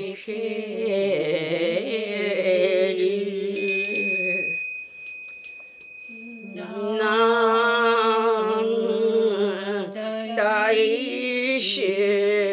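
Buddhist goeika hymn sung in slow, drawn-out notes that waver in pitch. About four seconds in the singing pauses and small bells ring, one long sustained tone with a few light strikes over it, before the singing resumes about six and a half seconds in.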